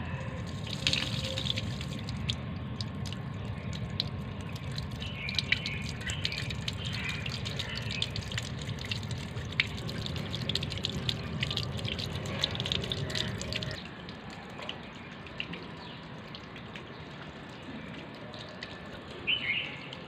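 A stream of water pouring out and splashing onto a concrete floor, with many small splashes, stopping about 14 seconds in. A short bird chirp comes near the end.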